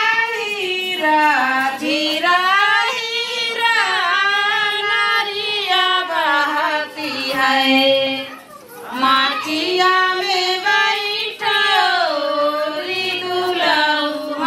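A single high voice singing long, wavering held notes, with a short break for breath partway through.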